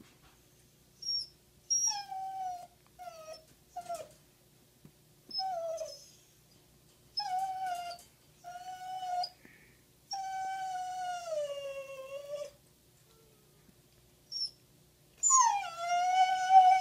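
A dog whining and howling in a string of about ten pitched calls, short yelps at first and then two long howls that slide down in pitch, the last and loudest near the end. The dog is upset that the cat is shut in its crate.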